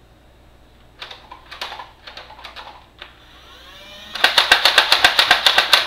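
Nerf Elite Hailfire blaster, its battery-driven flywheel motors spinning up with a rising whine after a few handling clicks, then firing darts in rapid succession: a fast run of sharp clicks, about eight a second, for nearly two seconds near the end.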